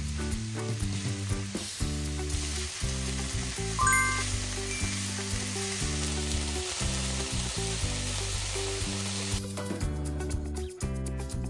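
Shredded cabbage sizzling as it fries in oil over high heat, stirred in the pan with a spatula, with a short ringing clink about four seconds in. The sizzling cuts off suddenly near the end, leaving background music that runs under it throughout.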